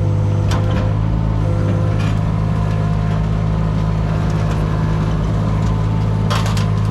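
Diesel engine of a small digging machine running steadily, with a few short metallic clanks, about half a second, two seconds and six seconds in.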